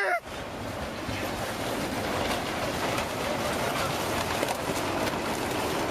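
Steady rushing noise of tsunami floodwater surging through.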